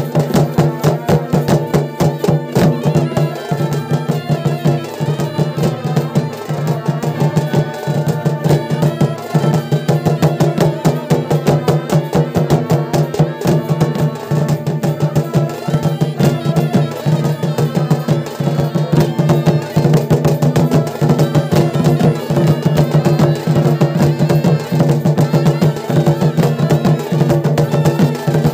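Purulia Chhau dance music played live: fast, dense drumming, many strokes a second, over a steady low held tone.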